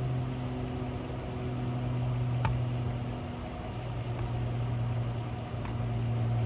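Old 12-volt air pump running with a steady hum while it inflates a tractor tire that has come off its bead, trying to seat the bead again. A single sharp click about two and a half seconds in.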